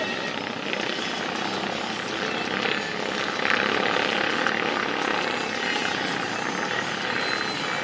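Engines of off-road race karts running on the track, a steady mixed engine noise that swells louder for a second or two near the middle as the pack passes closer.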